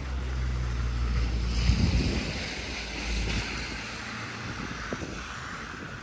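Wind buffeting the microphone as a low rumble, with a hiss that swells about a second and a half in and fades over the next few seconds.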